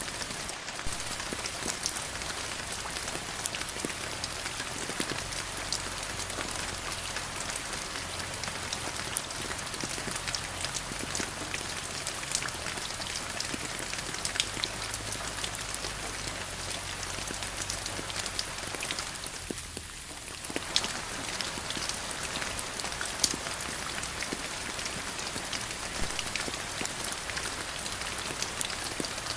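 Steady rain falling, with many individual drops striking a surface as sharp ticks over the hiss. It thins briefly about two-thirds of the way through, then returns.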